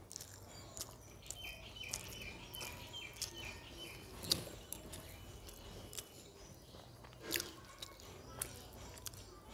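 Close-up eating sounds: fingers mixing rice on a steel plate and chewing, heard as scattered soft clicks and taps, the sharpest about four seconds in and again past seven seconds. A few faint high chirps, like a bird, come early on.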